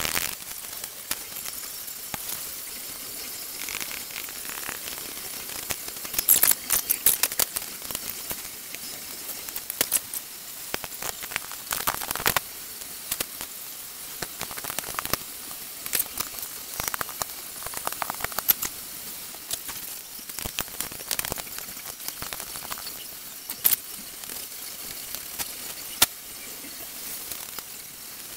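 Irregular metallic clicks, taps and scrapes of hand tools and fittings as a turbocharger is bolted onto a diesel engine, over a steady hiss. The clicks come in short clusters.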